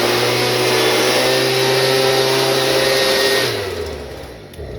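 A small gasoline engine running at high speed with a rushing air noise, then shut off about three and a half seconds in, its pitch falling as it spins down.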